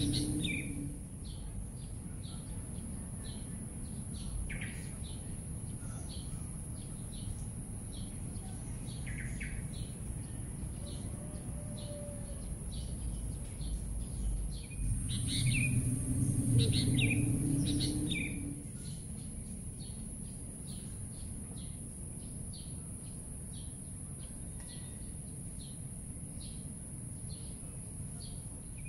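Small birds chirping and calling over and over in a nature ambience, over a constant high hiss and a low background sound that swells up for a few seconds around the middle.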